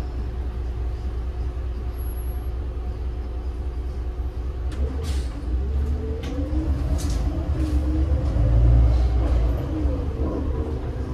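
Heuliez GX 137 city bus running, its Iveco Tector 7 six-cylinder diesel giving a steady low rumble. From about five seconds in, the engine and driveline note wavers up and down and swells loudest just before nine seconds, with several short hisses along the way.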